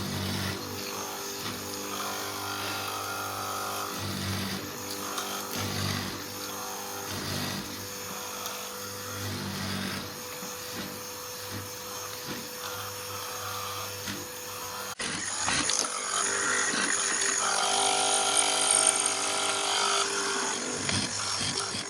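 Electric woodworking power tools running on wood, a steady motor sound. About two thirds of the way in it cuts suddenly to a louder tool.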